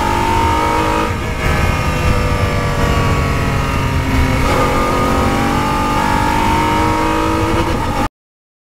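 Formula 3000 racing car's engine heard onboard at speed, running at about 5,000–6,000 rpm. The note dips briefly about a second in, changes abruptly with a shift from fourth to fifth gear, then rises steadily as the car accelerates.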